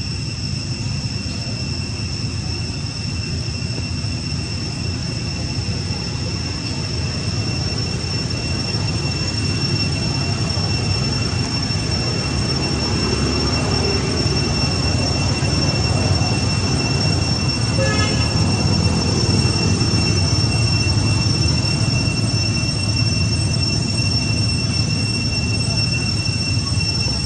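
Insects droning in a steady, unbroken high-pitched whine, over a low rumble of background noise.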